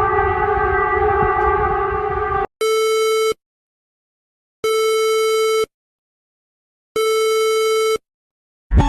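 Emergency alert alarm tones: a steady, buzzy chord of several tones for about two and a half seconds, then three long electronic beeps, each about a second, starting about two seconds apart with silence between them.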